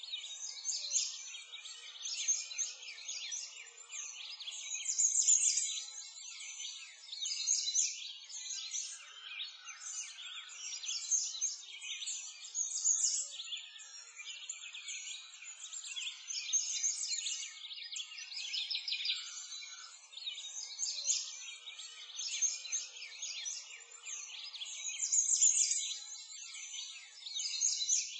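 A dense chorus of many small birds chirping and twittering without pause, swelling and fading in waves.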